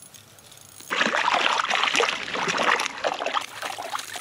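Hooked trout splashing in the water of an ice-fishing hole as it is hauled up through it, starting suddenly about a second in and easing off near the end.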